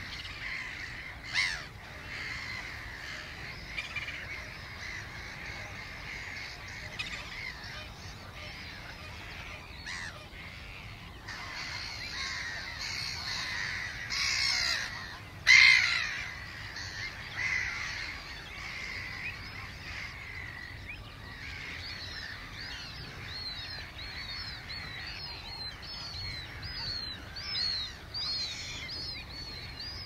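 Many wetland birds calling at once, a dawn chorus, with one loud call about halfway through and a run of short, repeated high notes near the end.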